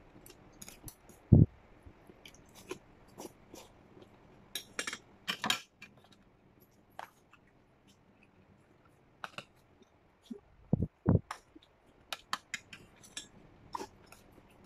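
Close-up eating sounds: chopsticks clicking and scraping against a stainless steel bowl of rice, with chewing in between. There is a loud low thump just over a second in and two more about two-thirds of the way through.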